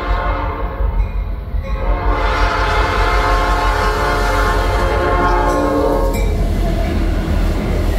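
Freight train's diesel locomotives approaching and passing close by, sounding their air horn as a steady multi-note chord over the engines' low rumble. The horn fades about six seconds in as the locomotives go by, leaving the rumble and rail noise.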